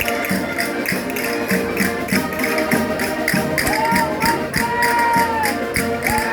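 Folk dance music played on concertinas, with percussion keeping a steady quick beat of about four strokes a second.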